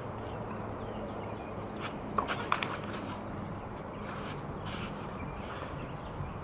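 Open-air background noise with a steady low hum, and a quick cluster of four or five sharp clicks about two seconds in.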